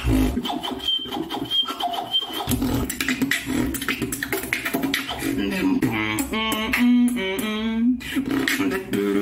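Solo beatboxing: rapid vocal kicks, snares and clicks run throughout. For the first two seconds or so a high whistled tone is carried over the beat. From about six to eight seconds in, a pitched, stepping vocal bass line with a wavering buzz takes over.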